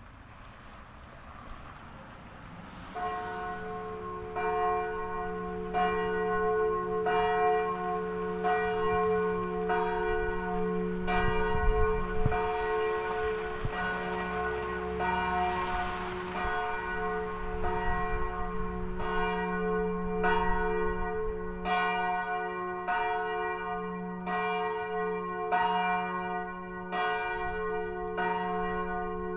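Landakotskirkja's middle church bell begins ringing about three seconds in, with even strokes about every second and a half and its deep hum carrying on between them.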